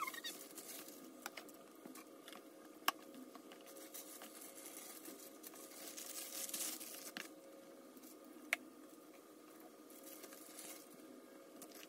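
Faint rustling and crinkling of thin plastic food-prep gloves handling soft grape leaves as stuffed vine leaves are rolled by hand, swelling a little past the middle. Two sharp clicks stand out, one about three seconds in and one near eight and a half seconds, over a faint steady hum.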